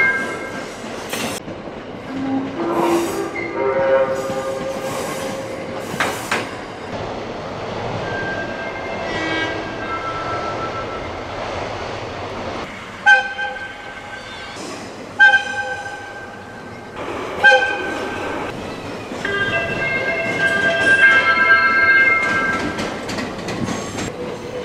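JR West electric trains sounding their music horn, a short melody of clear notes that climbs step by step, and giving three short air-whistle toots about halfway through, followed by a longer held horn chord near the end. Wheel and rail noise from the slowly moving trains runs underneath.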